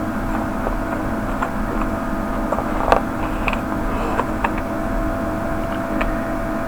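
Steady machine hum with several fixed tones, with a few light clicks and taps from handling small parts and tools at the workbench.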